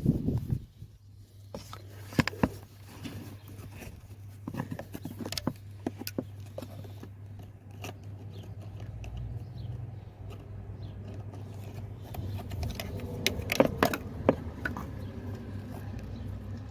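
Scattered clicks, scrapes and small metallic knocks of pliers working on the hose clips around a van's thermostat housing, with a steady low hum underneath.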